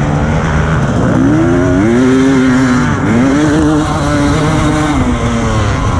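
Husqvarna TE300 single-cylinder two-stroke enduro motorcycle engine revving under load. Its pitch climbs about a second in, dips near three seconds and climbs again, then falls away near the end.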